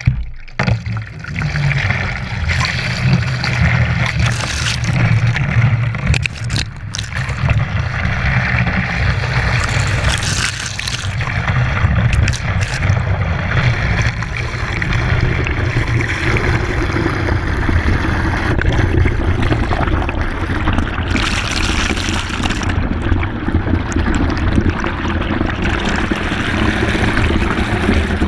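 Water from a garden hose pouring into a plastic bucket, heard from the bottom of the bucket as it fills: a steady rushing splash that starts suddenly.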